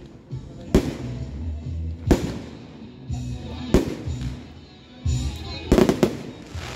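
Aerial firework shells bursting in sharp bangs, roughly one every one and a half seconds, with two bangs in quick succession near the end.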